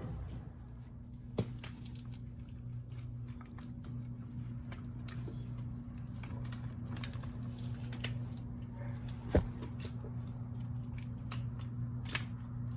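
Scattered sharp clicks and light knocks of hand tools and metal parts being handled while the carburetors are taken off a Yamaha Banshee, over a steady low hum.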